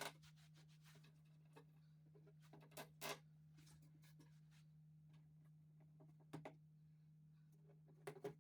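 A handful of faint clicks and light knocks from flat-pack furniture parts being handled and fitted, over a steady low hum.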